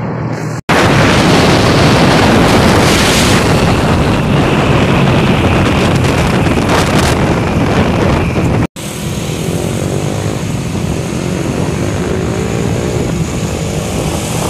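Loud rush of road and wind noise from a moving vehicle, mixed with the engines of passing trucks. The sound drops out for an instant twice, less than a second in and about nine seconds in.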